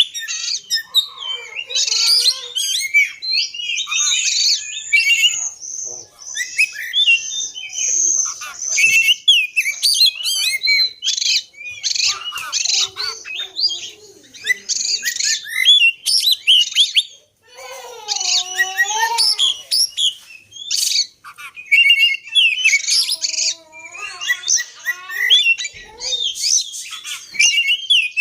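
Oriental magpie-robin (kacer) singing a long, varied song of rapid chirps, trills and gliding whistles, with a few short breaks.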